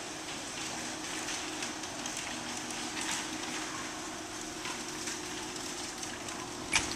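Electric garage door opener lowering a large sectional garage door: a steady motor hum with the rattle of the door running down its tracks. A sharp knock near the end as the door jolts down.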